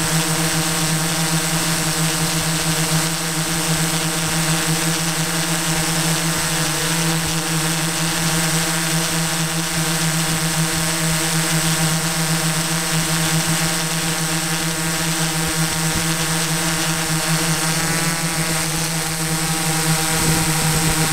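Drone's electric motors and propellers running with a steady buzzing hum, the pitch wavering briefly near the end.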